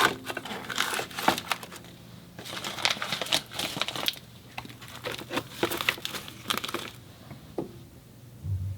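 Plastic bags or food wrapping crinkling and rustling as they are handled, with light sharp clicks and knocks, for about seven seconds before it quietens.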